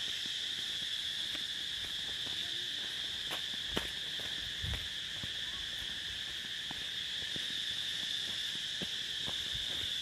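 Steady, high-pitched drone of insects calling in the forest, with a fainter, lower second band beneath it. A few soft knocks sound over it, the clearest about four seconds in and again just under five seconds.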